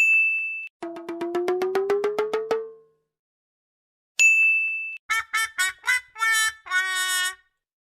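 Cartoon sound effects separated by a short bell ding. First a rapidly pulsing tone slides slowly upward and fades out. After a second ding comes a quick run of short, squeaky pitched notes that jump up and down in pitch.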